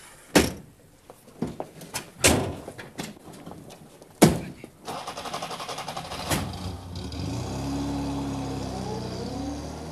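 Three car-door slams, the ambulance's rear door and side doors shutting, then its engine starts about five seconds in and runs as the car pulls away.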